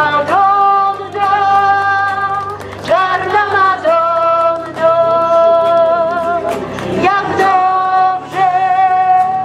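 Several voices singing together in slow, long-held notes with a wavering pitch. New phrases start about three and seven seconds in, over a steady low accompaniment.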